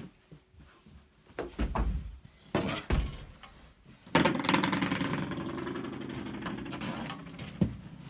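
Handling noise from a heat press being unplugged and picked up: a series of knocks and thumps. About four seconds in comes a sudden loud continuous rumble and rustle that slowly fades.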